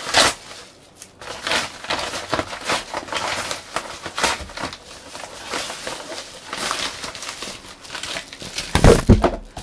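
Yellow padded mailing envelope being torn open and crumpled by hand, with repeated sharp rips and crinkles of paper. A loud thump comes near the end.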